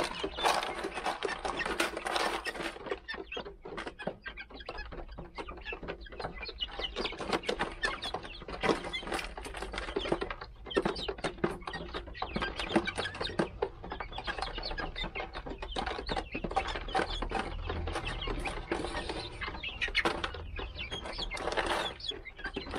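Young Golden Laced Polish chickens pecking and scratching at gravelly ground, a dense irregular patter of quick taps and clicks, with the birds' clucking calls mixed in.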